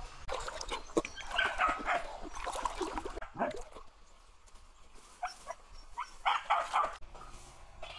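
Short animal cries, coming in several clusters with pauses between.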